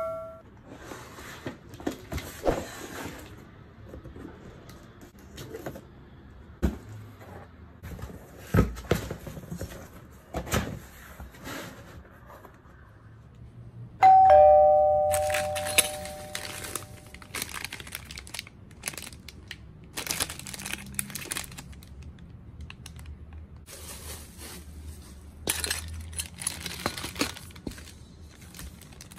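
Unpacking noises: cardboard and plastic wrap rustling, with scattered knocks and taps from handling. Midway a single bell-like ding rings out and fades over a few seconds.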